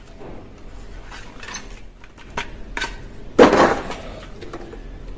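Light plastic clicks and clinks from a toy gun being worked, with one louder clattering clack about three and a half seconds in.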